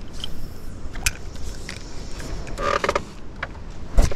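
Fishing tackle being handled: a spinning reel cranking with scattered clicks and a short creak about two and a half seconds in. A loud thump near the end as a sleeve knocks against the camera.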